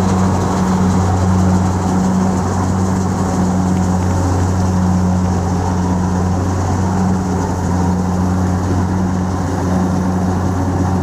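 Kubota DC-70 Plus combine harvester's diesel engine running steadily under load as it harvests rice, a low, even hum.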